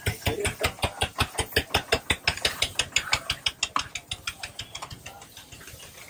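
Metal spatula blades striking a large flat iron griddle in a rapid, even rhythm of about five clanks a second while shredded egg parotta is chopped and tossed on it. The strikes thin out near the end.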